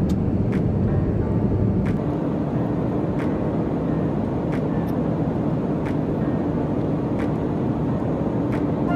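Steady airliner cabin noise in flight: the even roar of the engines and air rushing past the fuselage, heard inside the cabin. Faint short clicks come about every second or so over it.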